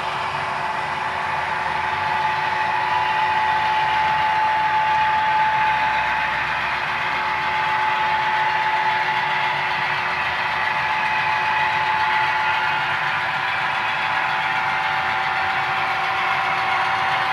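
Sound-equipped HO-scale model diesel locomotives running, their LokSound decoders playing a diesel engine's steady drone over the rolling of model coal hoppers on the track.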